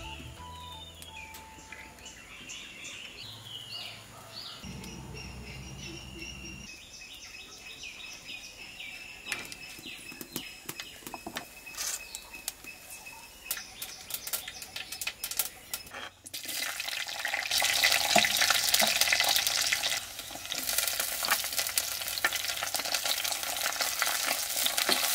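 Coconut oil heating in a clay pot with scattered small crackles and pops. About two-thirds of the way in comes a loud sizzle as sliced garlic and red chillies hit the hot oil. They keep frying, stirred with a wooden spoon.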